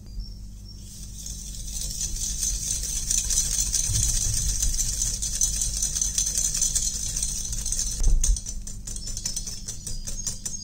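A wire whisk beating egg, butter and sugar in a glass bowl: a steady swishing through the wet mixture, with a knock about eight seconds in. Near the end it turns to rapid clicking of the wires against the glass.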